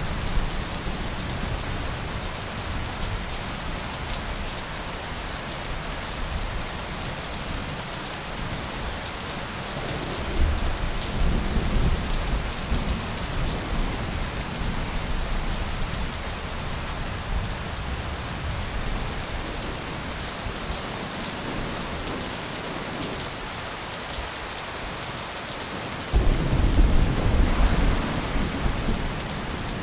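Steady rain with rolling thunder: a low rumble swells about ten seconds in, and a louder roll breaks in suddenly near the end.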